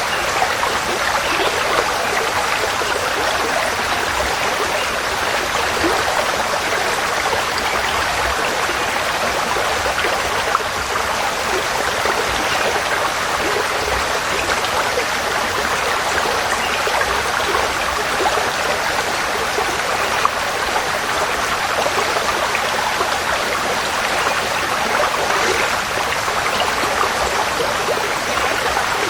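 Forest stream flowing: a steady, unbroken rushing babble of water with many small splashes.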